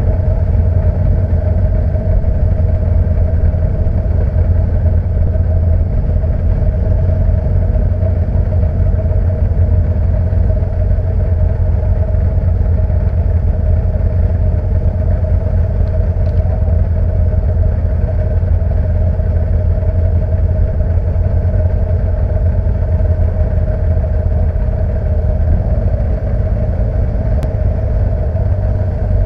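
Alfa Romeo 1490 cc flat-four boxer engine of a Le Gallen LLG82 Group C racing car idling steadily, heard from on board the car.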